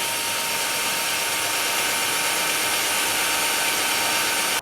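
Power drill running at a steady speed, drilling a screw hole through the van's sheet-metal wall, with a thin steady whine over the noise. The bit is dull and cuts slowly.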